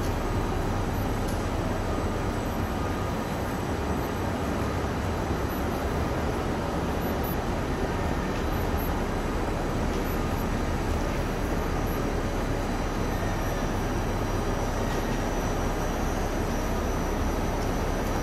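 Steady noise of a Railjet passenger train standing at a station platform, an even rush with a low hum beneath it and no sudden sounds.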